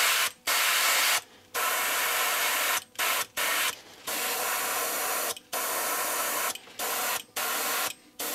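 Airbrush spraying transparent brown paint: a loud air hiss that stops and starts about ten times, in spurts of a fraction of a second to over a second with short gaps between.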